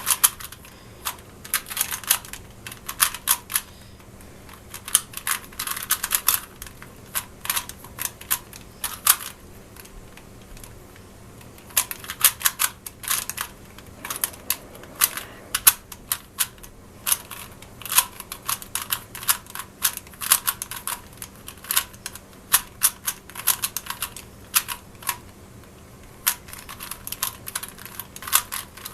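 Rubik's cube being turned fast in a timed solve: rapid plastic clicking and clacking of the layers, coming in quick flurries with short pauses between them.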